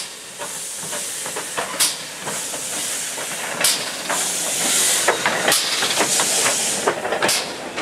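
GWR 57xx-class pannier tank steam locomotive passing close, with steam hissing steadily and a sharp exhaust chuff about every two seconds, and small clicks between the chuffs.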